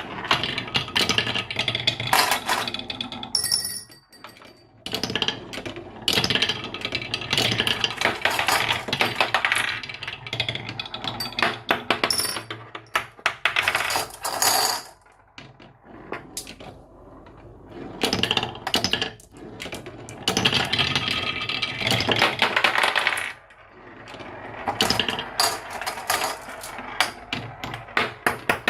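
Marbles rolling and clattering down a marble run track: dense, rapid clicking and rattling that comes in waves, with brief lulls about 4 seconds in, around the middle and near 23 seconds.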